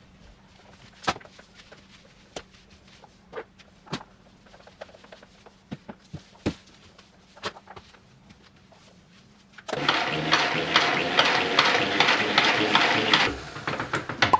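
Scattered light knocks and taps of a mop working across the floor, then about ten seconds in, a loud rushing whirr with a fast rattle for about three and a half seconds: a spin mop being wrung out in its bucket's spinner basket, with water swishing.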